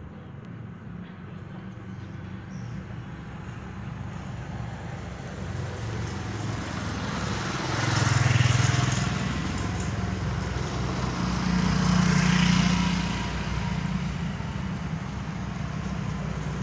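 Motor vehicles passing: a steady engine hum that swells loudest twice, about eight and twelve seconds in, then eases off.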